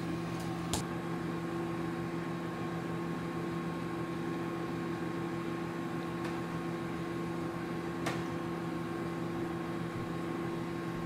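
Steady electrical hum of a household appliance running, with a few faint clicks.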